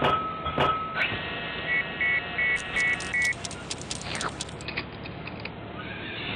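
Cartoon factory-machine sound effects: a blade chopping down with sharp clicks near the start, a run of five short electronic beeps, then a rapid mechanical clatter, over background music.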